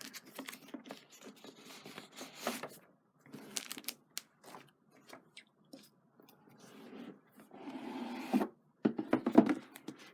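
A cardboard craft box being opened and its paper contents handled: irregular scraping and rustling with sharp clicks and crackles, loudest in a burst near the end.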